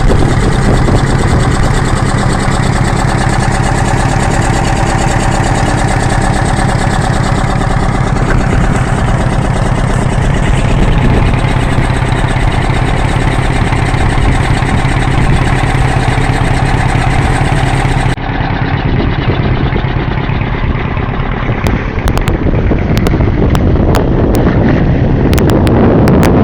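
Motor vehicle engine running steadily while driving, a constant hum. About two-thirds of the way through the sound changes abruptly to a rougher noise with wind buffeting and crackling on the microphone.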